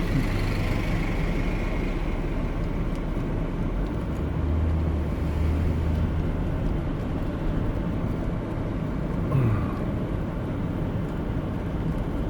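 Vehicle engine running steadily with a low hum, and a brief low falling sound about nine seconds in.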